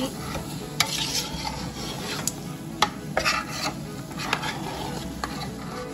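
A spoon stirring and scraping a thick onion-and-paprika mixture around a stainless steel pot, working the browned bits off the bottom, with several sharp clicks of the spoon against the pot.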